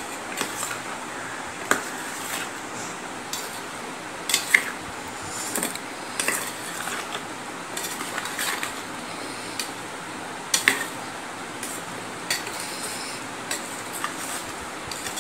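Metal spoon stirring and scraping in a steel bowl, mixing chopped paneer and vegetables: irregular clinks and scrapes against the bowl, sharpest twice, over a steady background hiss.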